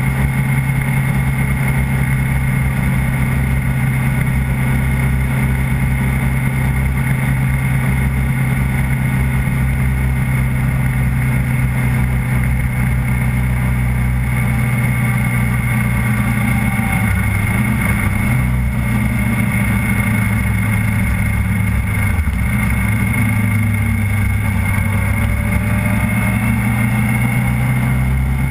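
The engine of the vehicle carrying the camera drones steadily at a slow, even cruise, with a slight shift in pitch a couple of times past the middle.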